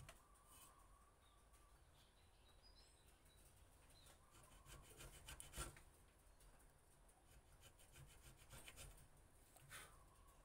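Faint scraping strokes of a steel hand carving tool cutting an anti-slip grip pattern into a wooden knife handle, in irregular clusters, the strongest about halfway through and again near the end.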